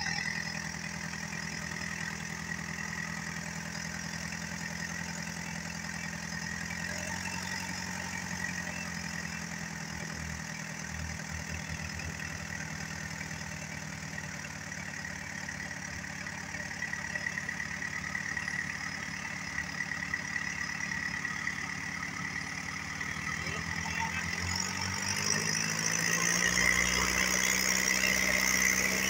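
Diesel engine of a fishing launch running steadily under way, with water rushing past the hull. Near the end the engine note shifts and everything grows louder.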